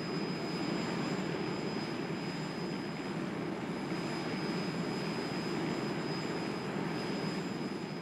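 Boeing 737 MAX's CFM LEAP-1B turbofan engines at takeoff power as the jet lifts off and climbs: a steady, even jet noise with a thin high whine above it.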